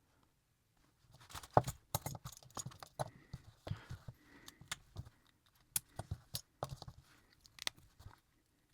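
Small snap-together model kit parts clicking and tapping as they are handled and pressed into place, a quiet, irregular run of sharp clicks starting about a second in.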